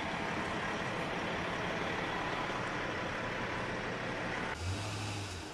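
A heavy diesel vehicle idling steadily, a fire engine's motor running. Near the end the sound cuts abruptly to a quieter scene with a brief low hum.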